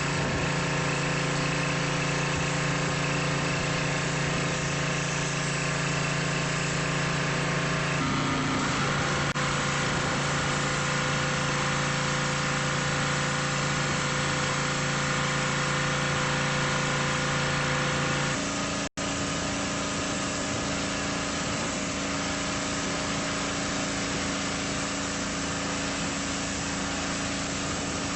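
Small gas engine of a pressure washer running steadily. The engine note shifts about a third of the way in and again about two-thirds through, with a split-second dropout at the second change.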